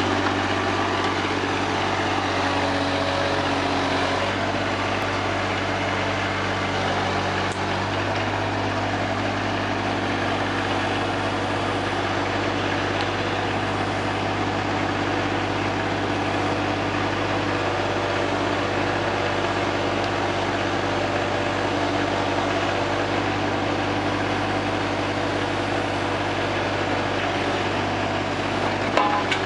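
Hitachi EX50 mini excavator's diesel engine running steadily while the boom and bucket dig. The engine note shifts slightly a few seconds in, and there is a brief louder knock just before the end.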